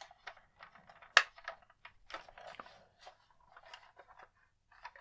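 Hard plastic toy X-Wing fighter being handled and turned over: scattered light clicks and taps of plastic parts, with one sharper click about a second in.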